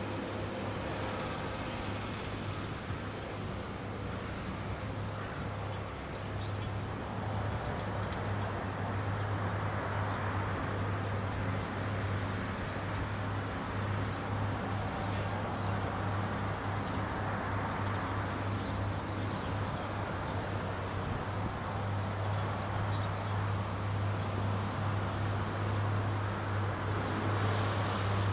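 Rice combine harvester running steadily in the field: a constant low engine hum under a rushing noise that swells now and then and grows a little louder toward the end.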